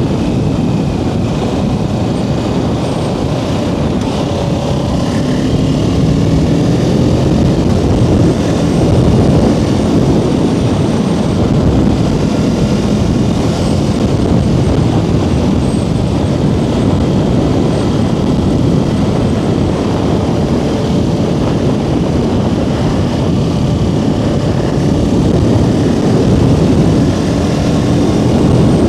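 Kawasaki Ninja 650's parallel-twin engine running while the motorcycle is ridden, its pitch rising and falling a few times with the throttle, over steady wind noise.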